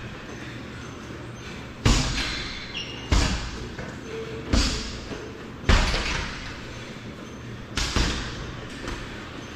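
Punches and kicks landing on a hanging heavy bag: five hard thuds roughly a second apart, then a lighter one near the end, each ringing out briefly in a large hall.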